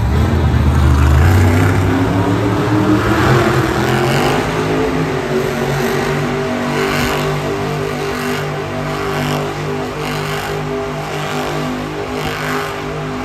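Monster truck's supercharged V8 engine revving hard. The note climbs over the first few seconds, then holds at high revs with a surge about once a second.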